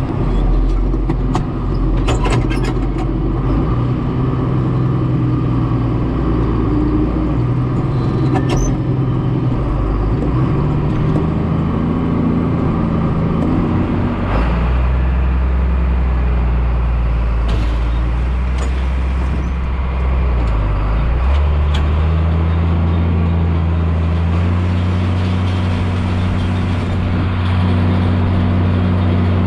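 John Deere 4055 tractor's diesel engine running, its speed stepping up and down several times, with a few sharp clicks or knocks in the first several seconds.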